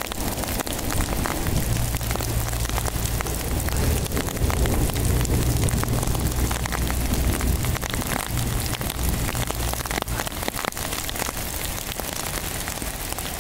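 Heavy downpour mixed with small hail pelting asphalt and the phone, a dense hiss full of sharp ticks from the pellets and drops. A low rumble runs under it from about a second and a half in and dies away about ten seconds in.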